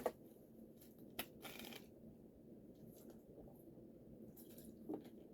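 Near silence with faint handling noises: a single sharp click about a second in, then a brief rustle.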